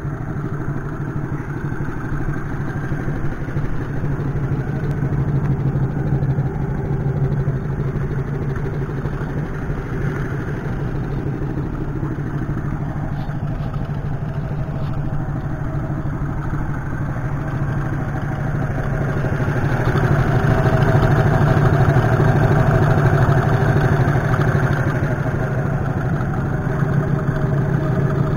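The 50cc Cub four-stroke single-cylinder engine of a converted four-wheel buggy idling steadily. It grows louder about two-thirds of the way through, then eases back.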